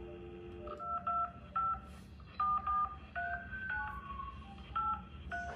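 Telephone dial tone that stops under a second in, then a number keyed in as touch-tone (DTMF) beeps: about ten short two-note beeps at uneven intervals.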